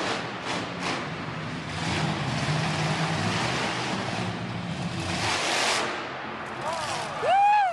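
Monster truck engines running hard under the noise of a packed arena, with their low rumble dropping away about five seconds in. Near the end a high cry rises and falls.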